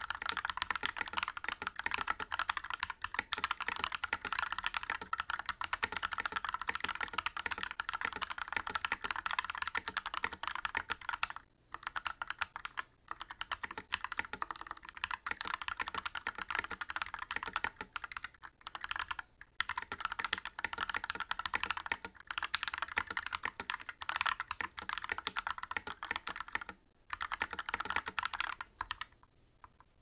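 Fast, continuous typing on a GMMK TKL mechanical keyboard with tactile Holy Red Panda switches on 67 g springs, unlubed, and PBT keycaps: a dense run of keystroke clacks with a few brief pauses. The typing stops shortly before the end.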